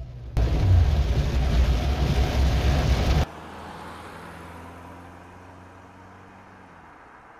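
Road noise and rain heard from inside a car driving in heavy rain: a loud, even rush with a deep rumble, which cuts off abruptly about three seconds in, leaving a faint hiss that fades away.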